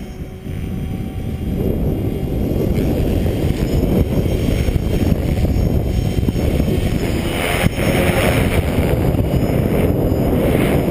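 Gaui X5 electric RC helicopter in flight, its rotor noise mixed with heavy, rough wind buffeting on the microphone, growing louder in the first two seconds.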